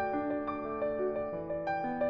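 Slow, gentle instrumental background music, with soft piano-like keyboard notes.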